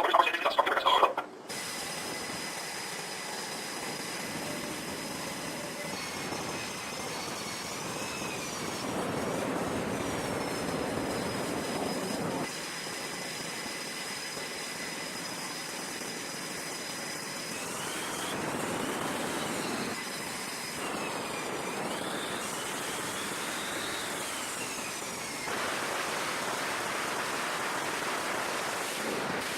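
Jet aircraft engines running with a steady rush, and high turbine whines that rise and fall several times.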